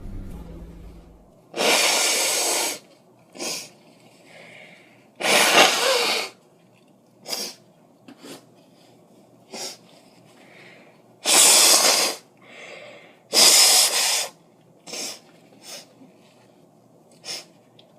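A girl sneezing four times, each sneeze lasting about a second, with short sniffs and breaths between them.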